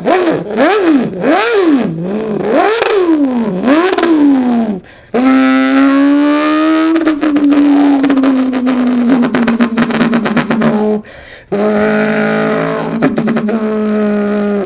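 A man imitating a car engine with his mouth: a run of throttle snaps, the pitch swooping up and down several times. It then settles into a long steady engine drone that slowly sinks in pitch, breaks off briefly near the end and comes back lower.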